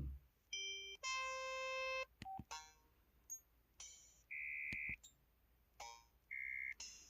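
KTF-X3500 mobile phone's keypad button tones: a run of short electronic beeps and chimes of different pitches, among them one held tone of about a second and two plain single beeps, with short clicks between them.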